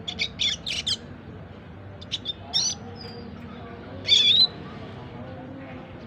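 Young red siskin, about four months old, calling in short bursts of high chirps as it practises its twittering 'ngriwik' song. It gives a quick cluster of notes in the first second, a few more around two and a half seconds, and the loudest phrase, a wavering one, at about four seconds.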